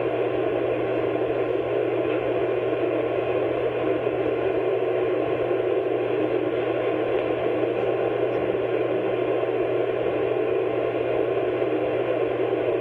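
Steady hiss with a low, constant hum from an old audio recording, with no distinct events.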